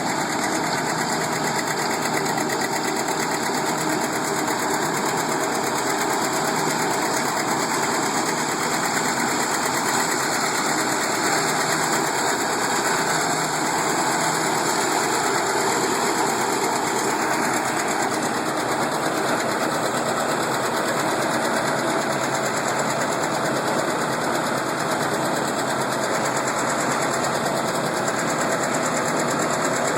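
Antique farm tractor engine running steadily, with a fast, even firing rhythm.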